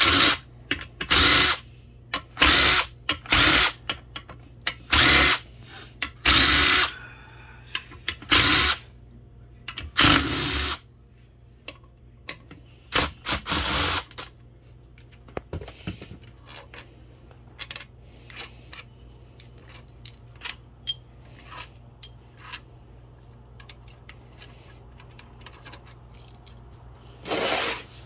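Cordless power tool spinning out the valve body bolts of a Honda B7TA automatic transmission in short bursts of under a second each, about a dozen in the first half, with light metal clicks in between and after.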